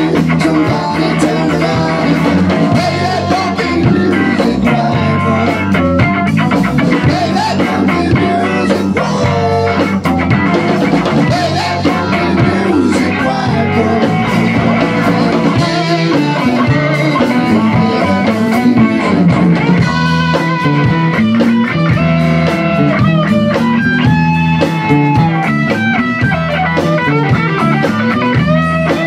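Rock band playing live: electric guitar, bass guitar and a Tama drum kit. In the second half the electric guitar plays held, bending lead lines over the bass and drums.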